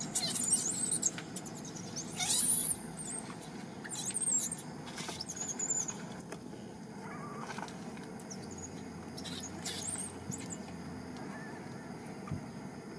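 Macaques giving high-pitched squeaks and squeals: a run of short calls in the first six seconds, the loudest a rising squeal about two seconds in, and a couple more near ten seconds.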